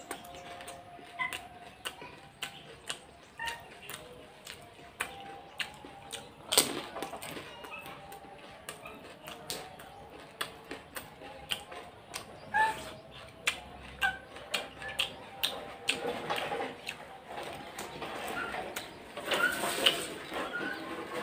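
Crisp pani puri shells being cracked open with a fingertip and crunched while eating: many sharp, irregular clicks and crackles, loudest in a dense cluster near the end. Birds chirp briefly here and there.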